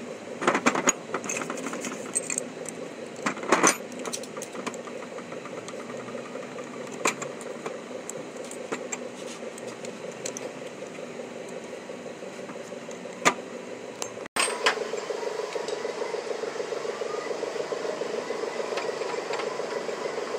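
Hand tools on a bare Suzuki 800cc engine block: a socket ratchet clicking and sharp metal clanks, loudest about half a second in and again around three and a half seconds, over a steady mechanical hum that grows louder about fourteen seconds in.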